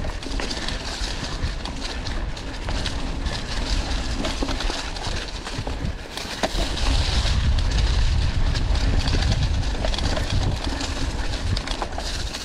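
Mountain bike riding over a forest trail: tyres rolling on dirt with the bike rattling and clicking over bumps, and a low rumble that grows louder about six and a half seconds in.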